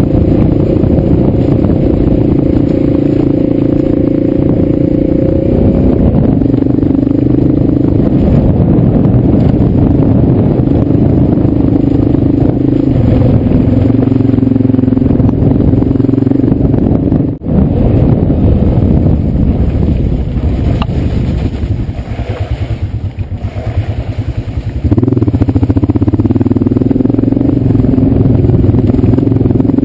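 Motorcycle engine running under load while the bike is ridden over a rough gravel track. The engine note steps up and down several times and drops out for an instant a little past halfway. It falls to a quieter, lower note for a few seconds near the end, then picks up loudly again.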